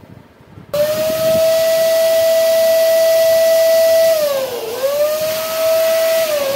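Electric balloon pump switching on under a second in and running with a steady whine over a rush of air as it inflates a latex balloon. The pitch sags twice, once midway and again near the end.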